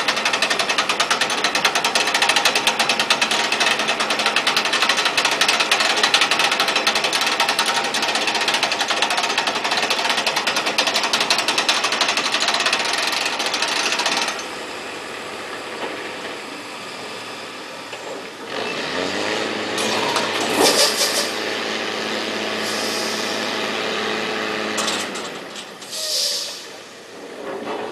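Heavy diesel engine working under load with a loud, rapid mechanical rattle; about halfway through it drops quieter, then revs up and holds a steady drone before easing off near the end.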